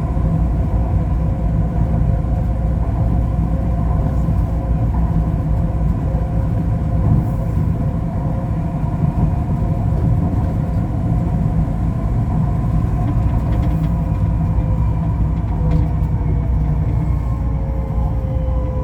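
Ui-Sinseol Line light rail train running between stations, heard from inside the car: a steady low rumble of the running gear with a motor whine of several steady tones. Near the end the whine starts to fall in pitch as the train slows for the next stop.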